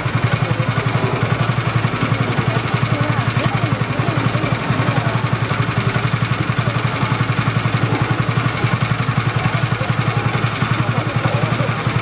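An engine idling steadily, with a fast, even pulse.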